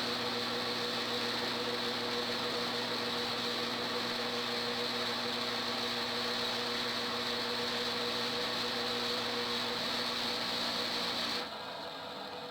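Homemade lathe running steadily with a constant hum and hiss while the pool cue is turned to take the ferrule. The motor cuts off about eleven and a half seconds in, leaving a fainter sound that fades away.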